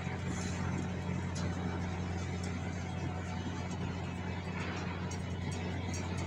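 Steady low hum of an idling diesel engine, even throughout, with a few faint light clicks of a hand on the filter housing.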